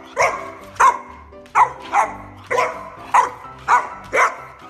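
A boxer puppy barking in play, about eight short barks in a steady run roughly every half second, over background music.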